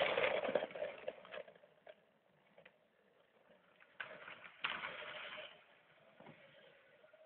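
Lionel B&O 4-4-0 toy electric train running on its track, its wheels clattering loudly twice as it passes close by, with a steady hum underneath.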